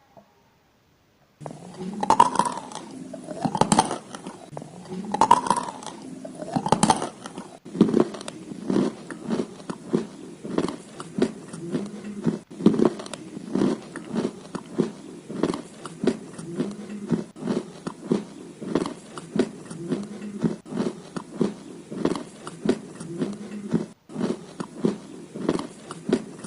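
A person biting into and chewing red clay crumbles close to the microphone. It starts after a moment of silence with four crunchy bites about a second and a half apart, then settles into steady chewing at about two chews a second.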